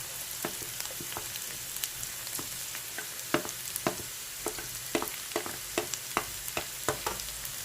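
Chopped onions and garlic frying in hot oil in a pan, with a steady sizzle. The utensil gives sharp clicks and scrapes against the pan as it stirs, more often in the second half.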